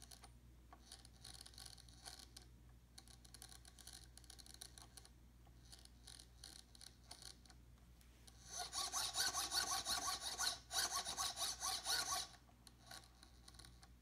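Gear train of a BK DS-5005HV mini servo grinding as its arm is turned slowly by hand: a fast, rasping run of clicks, louder for about four seconds after faint scattered clicking. It grinds only at slow rotation, after a crash, and the owner is unsure whether the gears need replacing.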